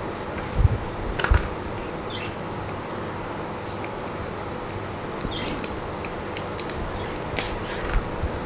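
Small clicks and taps of a smartphone's SIM tray being ejected and handled, with a couple of low bumps about a second in, over a steady background hum.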